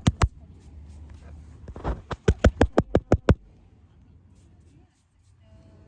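A rapid run of sharp taps close to the microphone, about six a second, in two bursts: a short one at the start and a longer one around two to three seconds in. These are typical of a phone being tapped or knocked while handled, after it was dropped in the sand.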